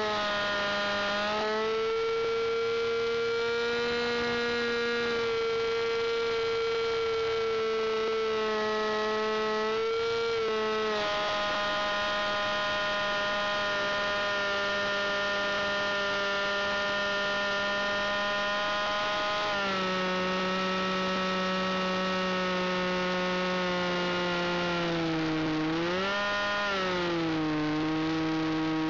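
Fuel-burning engine of an aerobatic RC model aeroplane, heard from the onboard camera in flight, running as a steady high drone. Its pitch shifts with the throttle: it drops about two-thirds of the way in, then dips and rises again briefly near the end.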